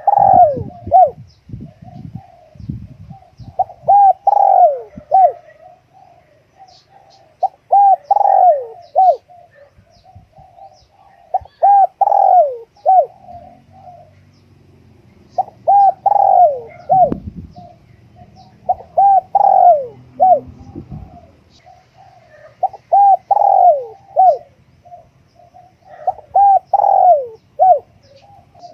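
Spotted dove cooing: about eight short phrases of a few low notes each, the last note dropping, one every three to four seconds.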